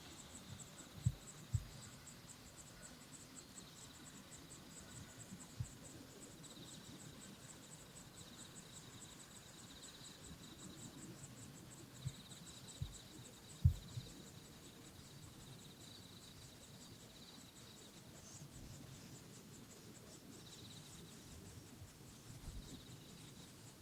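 Faint, high-pitched insect song: a fast, even pulsing stridulation, typical of a cricket or katydid, that fades near the end. A few short low thumps sound over it, the loudest about two-thirds of the way through.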